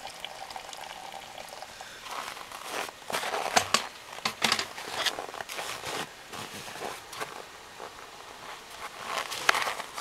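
Boiling water poured from a kettle into a plastic jug, a faint steady hiss and trickle. Then a run of irregular crunches and knocks as the man moves over hard-packed snow. Just before the end comes a brief rush as the hot water is flung into −18 °C air and flash-freezes into a cloud.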